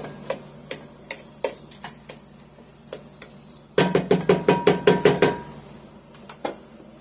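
A utensil knocking and clinking against a pot while stirring melting butter and brown sugar. There are light taps about every half second for the first three seconds, then a quick run of louder knocks about four seconds in, and one last knock near the end.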